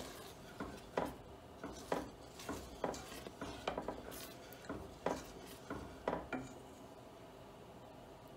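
Wooden spoon stirring thick chocolate syrup in a stainless steel pot, scraping and knocking against the pot's sides and bottom about once a second, with a quicker run of strokes near the middle. The stirring stops about six and a half seconds in.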